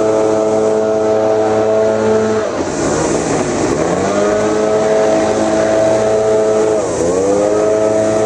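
Small two-stroke engine of a gas backpack leaf blower running at high speed with a rushing air hiss. Its pitch drops as the throttle eases about two and a half seconds in, then climbs back, and dips briefly again near seven seconds.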